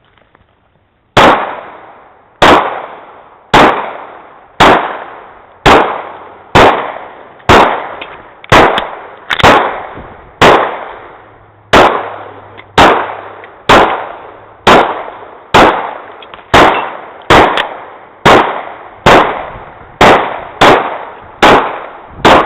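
Handgun shots fired steadily in a pistol drill, about one a second and slightly faster near the end, roughly twenty in all, each followed by a short echoing tail. The first shot comes about a second in.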